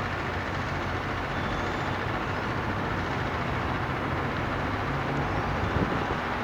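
Steady engine drone with a continuous noisy rush over it, unchanging throughout.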